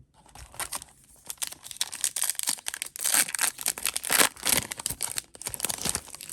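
Wrapper of an Upper Deck MVP hockey card pack being torn open and crinkled by hand, a dense crackling rustle that is busiest in the middle seconds.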